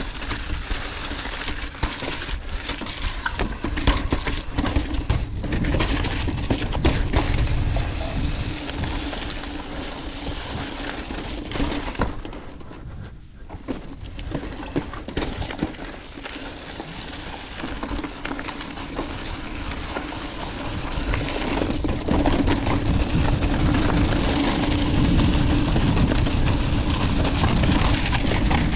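Full-suspension mountain bike descending a rocky trail: tyres rumbling and crunching over rock and dirt, with frequent clicks and knocks from the bike and wind rushing over the microphone. It drops off briefly about halfway through, then gets louder and steadier over the last third as speed picks up on smoother dirt.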